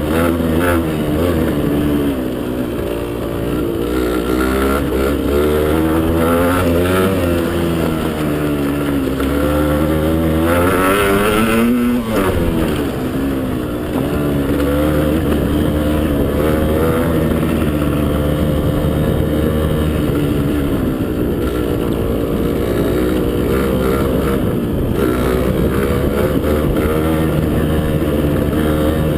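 Motocross bike engine running hard, its pitch rising and falling over and over as the throttle is opened and closed, with a steep climb to a peak about twelve seconds in and then a sudden drop.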